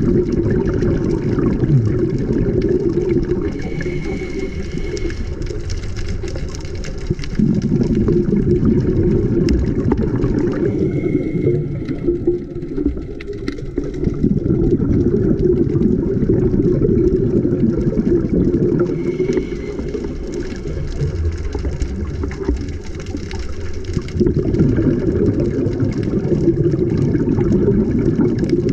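Muffled underwater rushing and bubbling that swells and eases in slow cycles every several seconds: a diver breathing through a scuba regulator, with the exhaled bubbles the loudest part.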